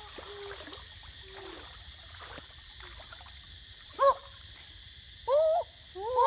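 Boys' short wordless vocal exclamations, with arching pitch: one loud cry about four seconds in, another a second later, and excited calling near the end. A steady high-pitched hum runs underneath.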